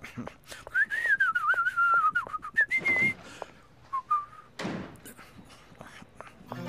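A man whistling a short, wavering tune for about two seconds, then two brief notes, over light footsteps as he climbs the stairs.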